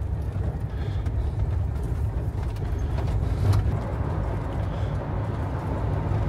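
Jeep Wrangler JK Unlimited driving down a dirt backroad, a steady low rumble of engine and tyres. A couple of short knocks come about three seconds in.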